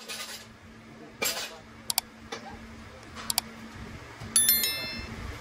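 Metal gearbox parts and hand tools being handled during assembly: scattered clicks and clinks, a short scrape a little over a second in, and a bright ringing clink near the end, over a steady low hum.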